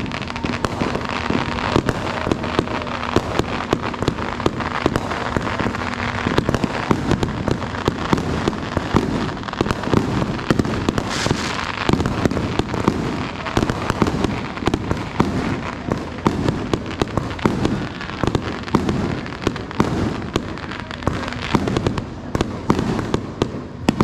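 Fireworks and firecrackers going off nonstop, a dense run of overlapping bangs and crackling pops with no pause.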